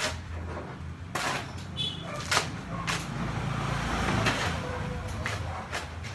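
Hand tools striking hard ground or material: scattered sharp knocks a second or so apart, over a steady low engine hum, with a swell of rushing noise in the middle.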